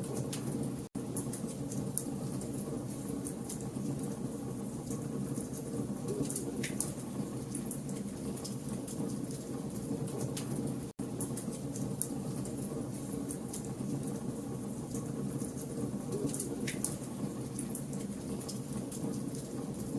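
Campfire logs burning: a steady low rush of flame with constant fine crackling and two sharper pops.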